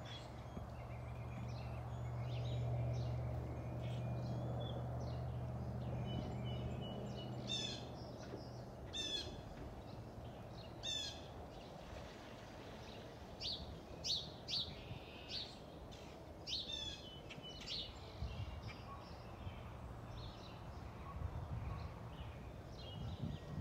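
Southwest Boeing 737-700 jet airliner with CFM56-7B turbofans passing high overhead: a low steady rumble that swells over the first few seconds and fades out about nine seconds in. Small birds chirp repeatedly over it, most often in the middle stretch.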